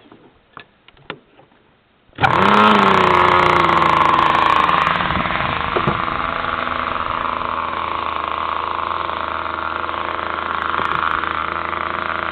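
The Seamaster RC float plane's model engine, spun by a hand-held electric starter, catches about two seconds in and runs steadily and loud. Its pitch wavers briefly as it fires up, and it settles a little quieter from about five seconds in.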